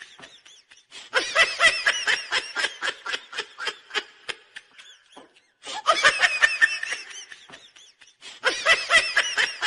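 High-pitched laughter in three bursts of quick ha-ha pulses, the first lasting about three seconds, then two shorter rounds.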